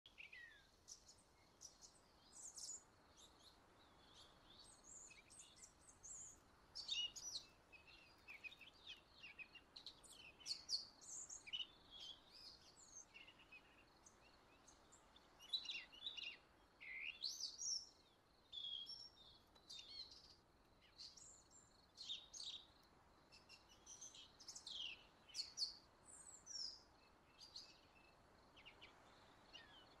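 Wild birds singing and calling: a busy, overlapping run of short chirps and quick whistled glides, over a faint steady background hiss.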